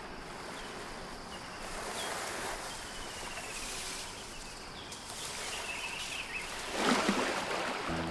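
Outdoor riverside ambience: a steady natural background hiss with faint, scattered bird chirps, and a brief louder rush of noise about seven seconds in.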